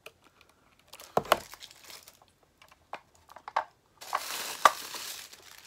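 A small plastic mini waffle maker being handled and opened: a few sharp clicks and knocks of its plastic shell, the loudest about a second in, then a steady rustle of packing material from about two-thirds of the way through.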